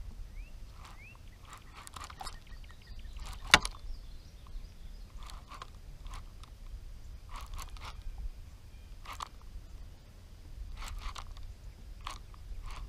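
Baitcasting reel being cranked in short, separate turns while a glide bait is twitched, each turn a brief whirring scrape, with one sharp click about three and a half seconds in. A steady low rumble runs underneath.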